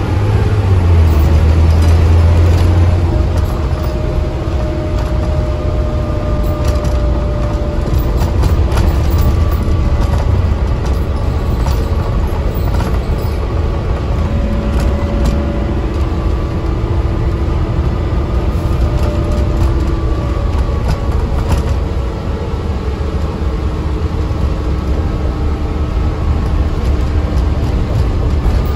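Alexander Dennis ALX400 Dennis Trident double-decker bus under way, heard from the upper deck: a steady engine drone and road noise, heaviest in the first few seconds. Over it runs a whine that rises and falls in pitch with the bus's speed, and there are occasional clicks and rattles.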